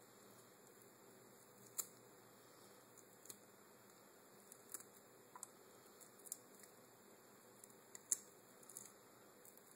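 Faint, irregular little cracks and clicks of a peeler crab's shell being picked off by hand, over a quiet hiss; the sharpest crack comes about two seconds in and another near the end.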